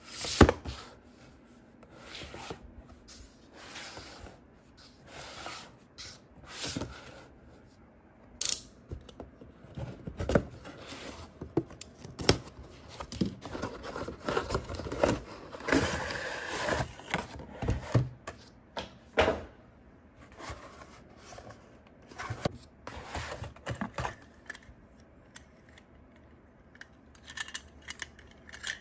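Cardboard and plastic toy packaging being handled: a printed box sleeve slid off, the box opened and a die-cast toy car taken out of its clear plastic tray. It is a run of separate scrapes, rubs, taps and crinkles, with a sharp tap right at the start and a longer rustle about halfway through.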